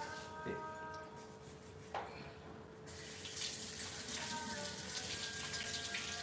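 Kitchen tap running into a sink, starting about three seconds in, after a single light knock about two seconds in.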